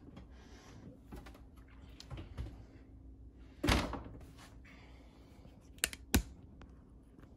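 Electric oven door swung shut with a single thunk about three and a half seconds in, followed about two seconds later by two sharp clicks in quick succession.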